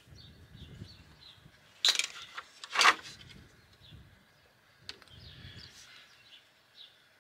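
Two sharp metal clatters about a second apart as scrap metal is handled and a small metal fitting lands in a plastic crate of other fittings. Small birds chirp faintly throughout.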